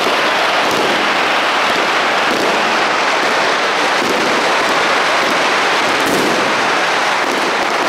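Dense, continuous crackling of many firecrackers and fireworks going off at once: a steady, loud din of overlapping pops with no single bang standing out.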